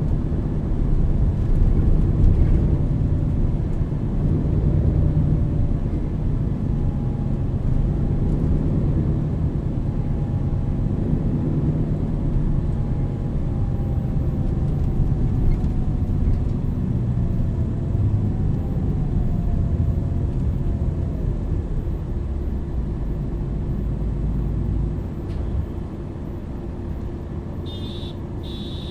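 MAN NL 323 city bus with a ZF EcoLife automatic gearbox driving: a steady engine rumble with a faint whine that rises and falls as it goes through the gears. It settles quieter about 25 seconds in, with two short high-pitched sounds near the end.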